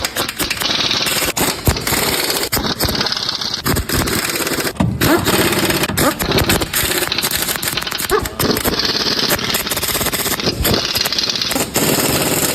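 A power tool hammering rapidly and steadily, with background music under it.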